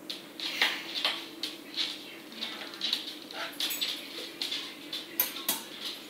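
Irregular light clicks and taps, a few a second, over a steady low hum.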